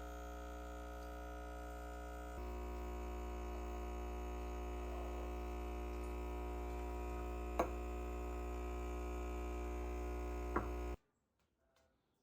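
A steady electrical hum with many even overtones, which gets a little louder about two seconds in. It has two sharp clicks, then cuts off suddenly near the end.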